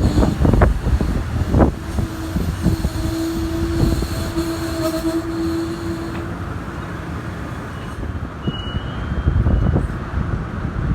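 MARC commuter train rumbling on the rails, with a steady squeal of wheels or brakes for a few seconds early on, over gusts of wind on the microphone.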